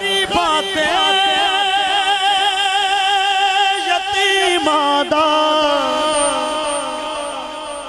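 A male naat reciter singing a long melismatic line with a wavering vibrato, held through several notes that step down in pitch about halfway through.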